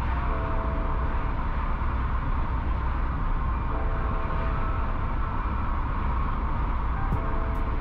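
Volkswagen Golf Mk2 being driven: a steady low rumble of engine and road noise.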